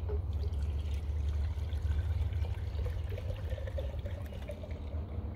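Mead being poured from glass bottles into drinking horns, a liquid trickle whose note rises a little through the middle as the horn fills, over a steady low rumble.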